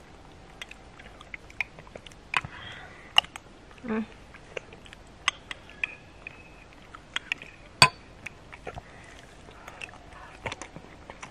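Metal spoons clinking and scraping against ceramic bowls while eating soup: a scattered series of sharp clinks, the loudest about eight seconds in, with soft eating sounds and a few short, faint vocal sounds between.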